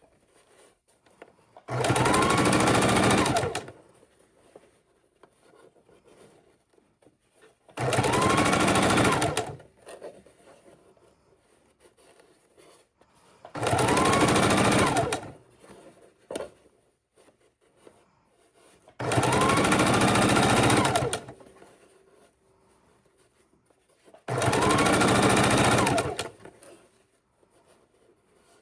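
Electric sewing machine stitching in short runs: five bursts of about two seconds each, every five to six seconds, each starting with a rising whine as the motor speeds up, with pauses between.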